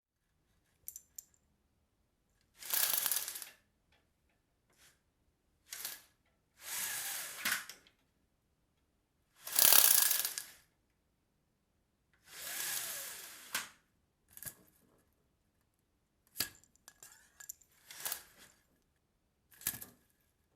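Window blinds being pulled up, let down and adjusted: four noisy pulls of about a second each, the loudest about ten seconds in, separated by short clicks and silent gaps.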